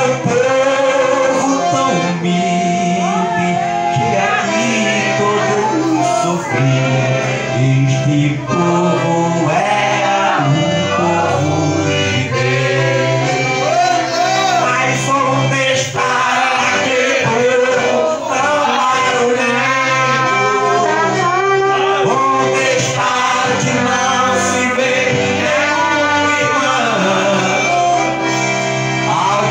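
Live gospel music: a piano accordion played with a man singing, and a trombone playing near the end.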